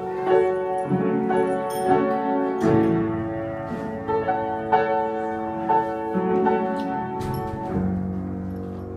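Instrumental music: a melody of struck notes that ring on, several to a second.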